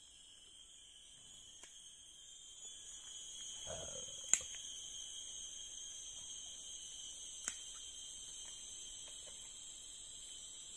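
Insects trilling steadily in a high-pitched chorus, growing louder a few seconds in. Two sharp clicks come through it, one about four seconds in and one about three seconds later.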